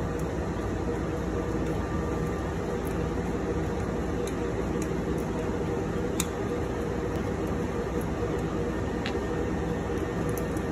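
Steady fan and air-conditioning hum of an equipment room, with a few faint clicks from handling the plastic fan tray parts.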